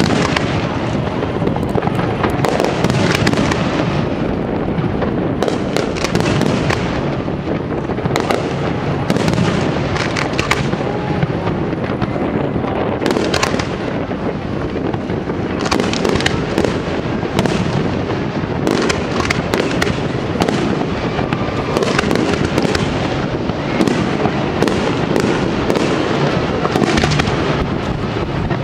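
Aerial firework shells bursting in quick, unbroken succession: a dense run of booms and sharp reports heard from close range, with no pause between them.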